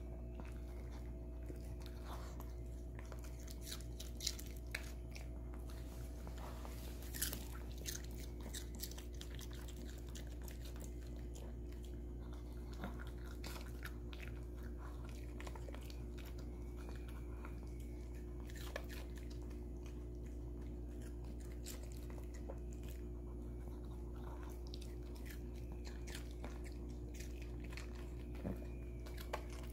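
Maltese dog eating raw cucumber pieces from a bowl: scattered crunches and chewing clicks, a few louder bites among them, over a faint steady hum.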